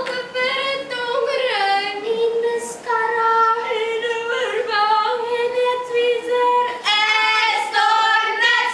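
Children's voices singing a melody together, holding long notes one after another.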